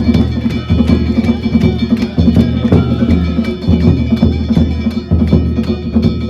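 Danjiri float narimono: a taiko drum beaten in a fast, steady rhythm together with clanging hand-held kane gongs whose metallic ring hangs between the strikes.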